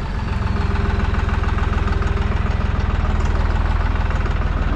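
Deutz-Fahr 55 F Keyline tractor's diesel engine idling steadily with an even firing beat.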